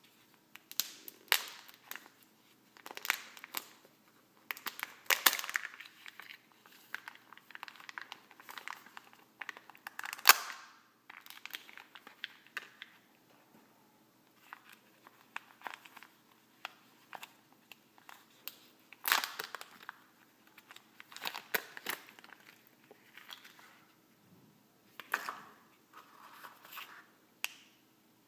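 Kinder Joy egg being unwrapped by hand: the thin wrapper tearing and crinkling in irregular bursts, with plastic handling clicks as the egg and its toy capsule are opened. A sharp crack about ten seconds in is the loudest sound.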